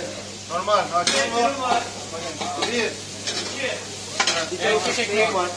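Diced tantuni meat sizzling in a wide, round, shallow metal pan as a metal spoon stirs and scrapes through it, with a couple of sharp clinks of the spoon against the pan.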